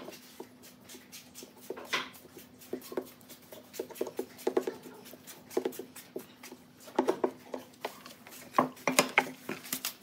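Wooden stick scraping and tapping as it spreads thick brown glue paste across the face of a wooden disc, with a run of sharper clicks near the end. A faint steady hum sits underneath.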